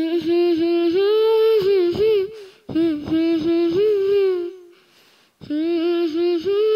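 A solo high voice singing a slow melody without accompaniment, in three phrases with short pauses between them.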